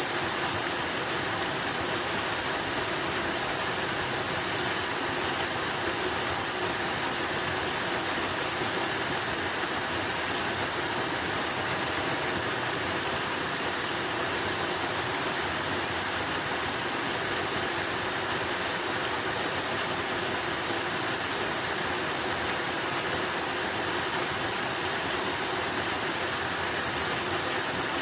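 Running water rushing steadily, a continuous even hiss like a stream or small waterfall.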